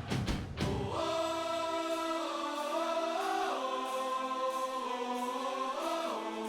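Music: a few drum hits, then a choir singing long held chords that shift in pitch a few times.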